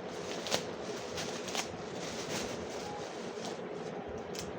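Light handling noise: a few soft clicks and rustles as a plastic face-wash pack is turned in the hands, over a steady background hiss.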